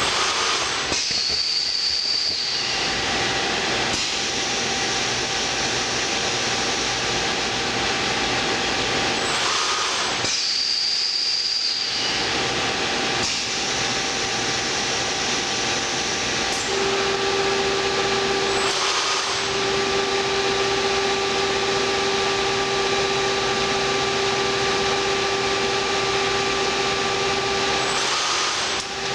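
Sencorp 2500 roll-fed thermoformer running, a steady mechanical hiss and rumble that changes in a repeating cycle about every nine seconds. A steady hum joins about halfway through.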